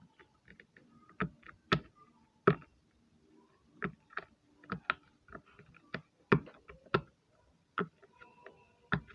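Silicone bubbles of a hard-shell Pop It fidget toy being pressed in one by one, each giving a sharp pop. There are about a dozen pops at an uneven pace of one to two a second.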